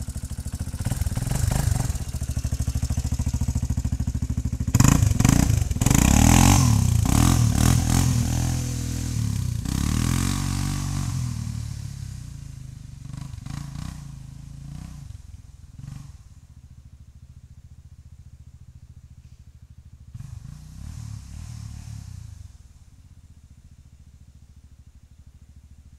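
Yamaha Raptor 350 quad's single-cylinder four-stroke engine revving and accelerating, the pitch rising and falling as it pulls away. It is loudest about five seconds in, then fades into the distance, with a faint rise in revs again later on.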